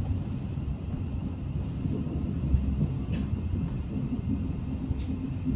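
Interior running noise of a Class 700 Desiro City electric train in the tunnel: a steady low rumble of wheels on track with a faint steady high whine, and a couple of short clicks about three and five seconds in.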